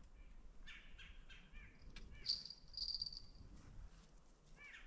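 Faint bird calls in winter woodland: a few short chirps, and one high whistled note a little over two seconds in.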